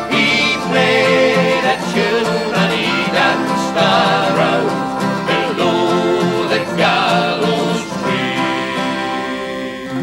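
Irish folk band playing the closing bars of a ballad, with plucked guitar and banjo under a wavering melody line. The music settles onto a held final chord near the end and begins to fade.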